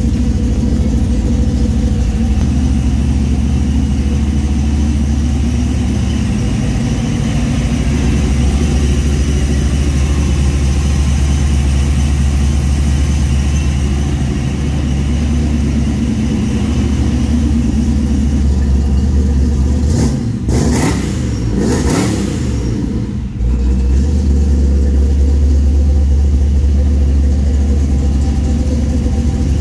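A vehicle engine idling with a steady low rumble. About two-thirds of the way in, the sound breaks into a few sharp noises and a brief change in pitch, then settles back to the same idle.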